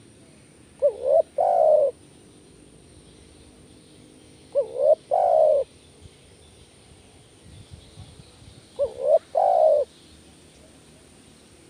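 Spotted dove cooing: three phrases about four seconds apart, each two short rising notes followed by a longer coo.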